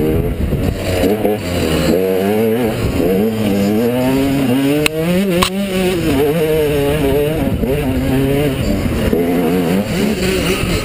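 KTM enduro dirt bike engine revving up and down as it is ridden along a rough trail, with a steady climb in pitch to a peak around the middle before it drops back. Two sharp knocks about five seconds in, and rough rumbling noise underneath.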